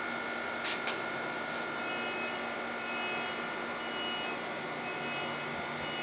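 Amtrak ACS-64 electric locomotive standing with its train: a steady hum and whir of cooling fans with high electrical whining tones, one of them breaking in and out. Two short clicks come about a second in.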